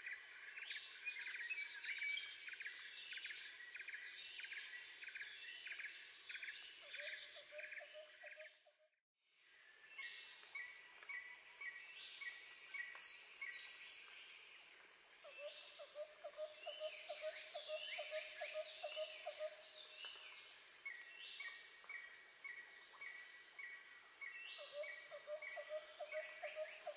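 Birds chirping and calling, with insect-like chirping mixed in: rapid repeated chirps, short trills and quick whistling glides, layered and continuous. The sound drops out for about a second nine seconds in, then resumes.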